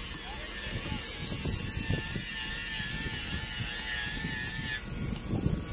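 Machinery running steadily, with irregular low rumbling and a faint wavering whine over it.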